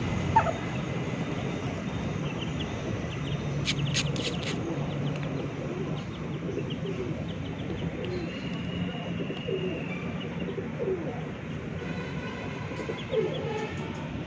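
Domestic pigeons cooing, with short high chick peeps and a few sharp clicks about four seconds in.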